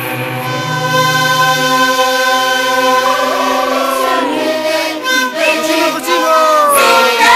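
Andean carnival music: an ensemble of long cane flutes sounding held, layered tones, joined from about three seconds in by voices singing with sliding pitches.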